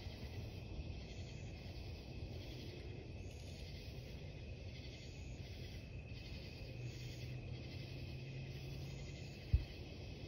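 Night insects chirring in a steady chorus that swells and fades about once a second. A low hum joins for a couple of seconds past the middle, and a single sharp click sounds near the end.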